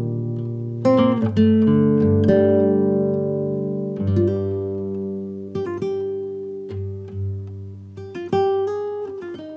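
Guitar music: chords and single notes plucked one after another, each left to ring and fade before the next.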